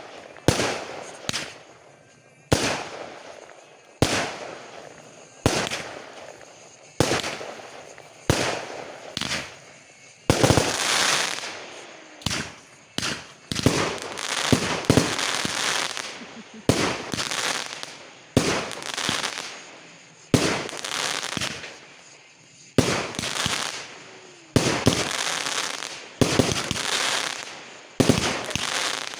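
Fireworks going off in a steady series, a sharp bang every second or two, each trailing off in crackling; the bangs come thicker and overlap for a while in the middle.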